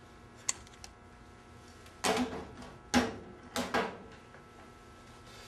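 Desk handling sounds: a sharp click, then three short rustling noises about a second apart as papers are handled.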